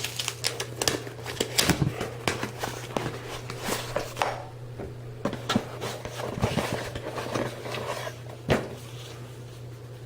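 A package being opened and its contents handled: irregular rustling, crinkling and small clicks, busiest in the first few seconds, with one sharp knock near the end. A steady low hum runs underneath.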